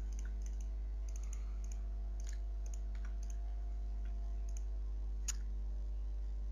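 Computer mouse clicks, a scattered run of light clicks with the sharpest about five seconds in, over a steady low hum.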